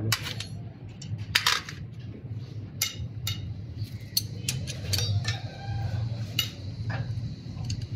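Spanners and a breaker bar working on a diesel engine: irregular sharp metallic clicks and clinks, about a dozen, over a steady low hum.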